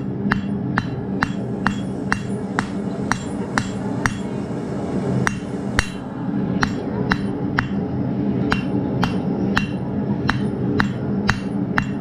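Hand hammer striking hot steel tines on an anvil, the anvil ringing with each blow, about two blows a second with a brief pause about four seconds in, over a steady low hum. The tines are being hammered round.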